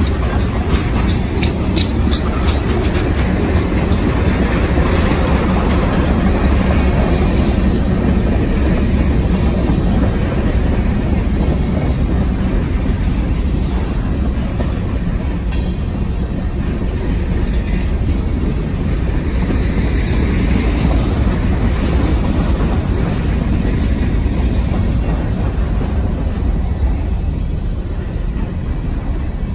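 A freight train's tank cars and covered hopper cars rolling past close by: a steady, heavy rumble of steel wheels on rail, with a few faint clicks in the first seconds.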